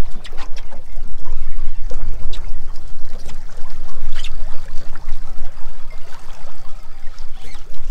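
Unsteady low rumble of wind on the microphone over water lapping against the boat hull, with scattered light clicks and knocks.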